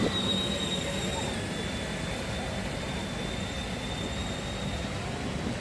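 Steady outdoor ambience: a constant wash of background noise at an even level, with a faint thin high tone running through it.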